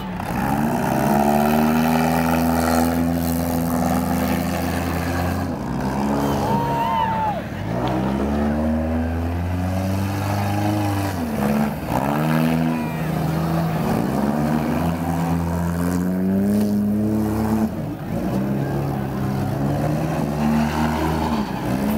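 Demolition derby car engines revving up and down, several at once, with a few sharp bangs of cars colliding.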